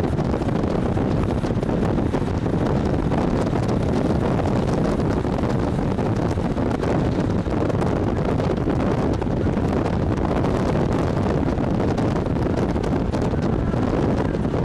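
Steady wind noise on the microphone from a moving vehicle, with the vehicle's running noise underneath.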